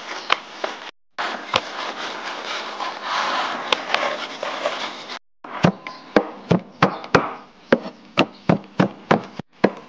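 A wooden rolling pin rolling dough on a floured board makes a steady rubbing sound. About five seconds in, a cleaver starts chopping green onions on a wooden board, a run of sharp knocks at about two or three chops a second.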